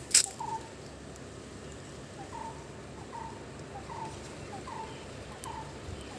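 A bird repeating one short call steadily, a little more than once a second, with a brief pause early on. A single sharp click sounds just after the start.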